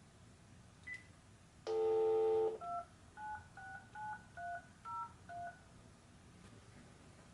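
Telephone line through an OBi200 voice adapter: a short beep, about a second of a steady tone, then seven quick touch-tone (DTMF) digits dialled in a row.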